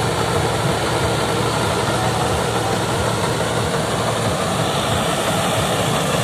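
Mahindra Arjun 555 DI diesel tractor running steadily while driving a straw reaper through wheat stubble: a loud, even machine noise over a pulsing low engine rumble.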